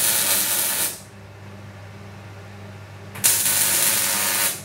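Arc welding steel box tube: two runs of crackling, hissing arc, the first about a second long, the second starting about three seconds in. A low steady hum sits underneath.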